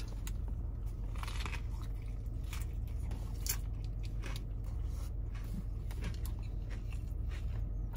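A man biting into and chewing a Double Southwest Bacon Whopper topped with crispy tortilla strips: scattered crisp crunches and wet mouth sounds, over a steady low hum.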